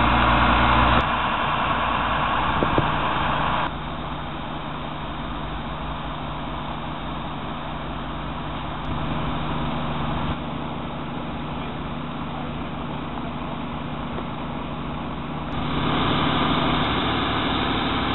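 Steady hum of idling heavy vehicle engines with street traffic noise, changing abruptly in level several times.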